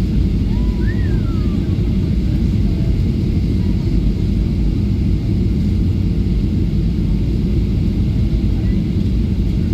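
Boeing 737-800 cabin noise on the ground after landing: a steady, low rumble from the CFM56 engines and the airframe as the jet rolls toward the taxiway, heard from inside the cabin.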